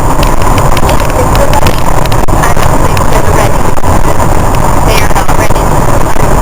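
Loud, steady rumbling noise with indistinct voices under it.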